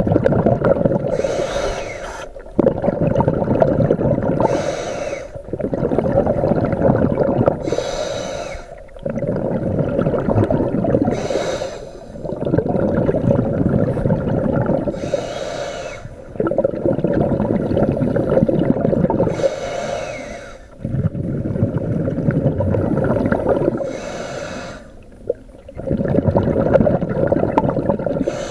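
Scuba regulator breathing underwater: a short hissing inhale through the demand valve, then a long bubbling exhale, repeating about every four seconds, some seven or eight breaths in all.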